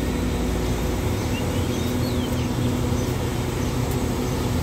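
Steady low hum of a stationary diesel passenger train idling at the platform, with a few short bird chirps over it.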